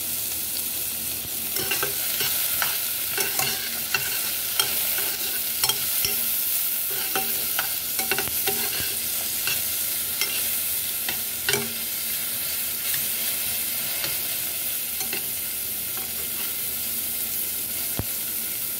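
Sliced onions sizzling in a little hot oil in a pot as they are sautéed to caramelize, with a metal spoon scraping and tapping against the pot as they are stirred.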